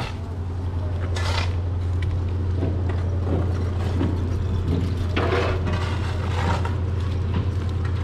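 A steady low engine drone, with no change in pitch, and short rustling scuffs about a second in and again about five seconds in.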